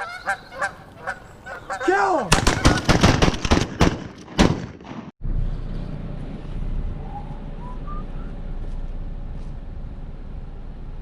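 Geese honking amid a rapid run of shotgun blasts for about the first five seconds, then an abrupt cut to a steady low outdoor rumble with a faint rising call a couple of seconds later.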